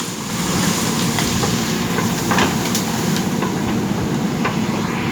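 JCB 3DX backhoe loader's diesel engine running steadily under working load, with a few sharp knocks from the digging gear.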